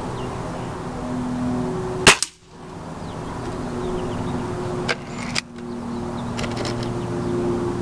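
A single shot from a .22 break-barrel spring-piston air rifle, a Beeman RS2, about two seconds in: a sharp crack followed almost at once by a second crack. Lighter clicks come around five seconds in and again around six and a half seconds in.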